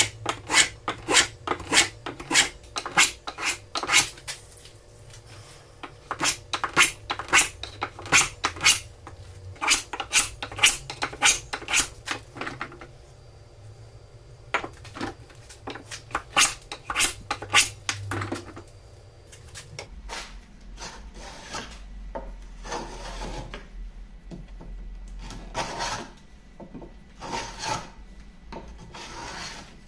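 Wooden skewed rebate plane cutting a rebate in a hardwood block, each stroke a short hiss as the iron takes a shaving. The strokes come quick and even, about two a second, break off briefly, resume, and in the last third come slower and longer, a second or more apart.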